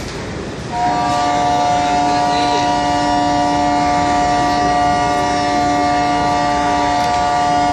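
Indian Railways locomotive air horn sounding one long, steady multi-note blast, starting about a second in and held throughout, over the rumble of a train at the station.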